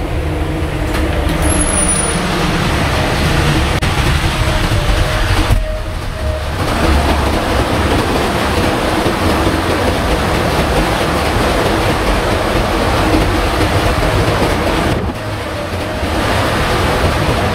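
Loud, steady din of a ship's engine-room machinery running, a dense rumble and roar with no let-up, briefly dipping about six seconds in and again near the end.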